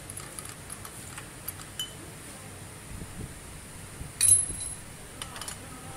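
Hand tools working on bolts under a car: scattered light metallic clicks and ticks, then one loud sharp metal clink about four seconds in.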